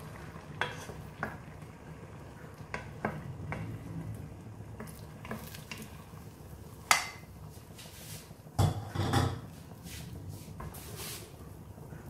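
Wooden spatula scraping and tapping against a ceramic non-stick wok while spreading beaten eggs and onion slices. Irregular light knocks and scrapes, the loudest about seven seconds in and a cluster around nine seconds.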